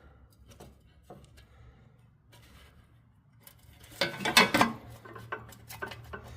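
Hand tools clinking and scraping against the sheet-metal engine shroud of a snowblower while working at a stuck bolt: a few faint clicks, then a short burst of loud metal clatter about four seconds in.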